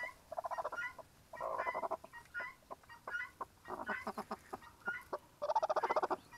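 Broody hen giving repeated buzzy, pulsed growls and clucks as she is lifted off her clutch of hatching guinea fowl eggs, the protest of a sitting hen disturbed on her nest. The loudest burst comes near the end.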